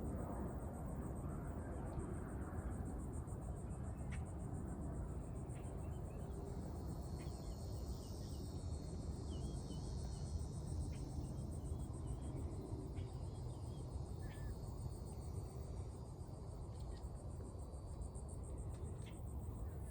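Insects trilling in a steady, high-pitched, fast-pulsing chorus. A second, lower trill joins for several seconds in the middle, and a low rumble runs underneath.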